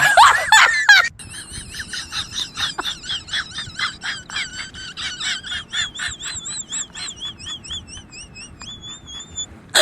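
Fetal doppler's speaker playing a baby's heartbeat: a fast, even pulse of whooshing beats, each with a rising-and-falling pitch, turning clearer and more whistle-like in the last few seconds.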